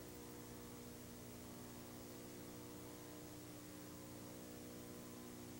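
Faint steady electrical hum with a constant hiss underneath; no other sound stands out.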